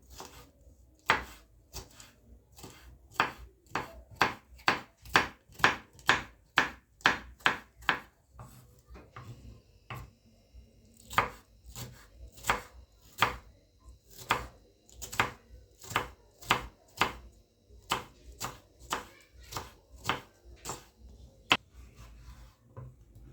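Knife chopping vegetables on a cutting board: steady, quick strokes about two a second, with a short pause about nine seconds in before the chopping resumes.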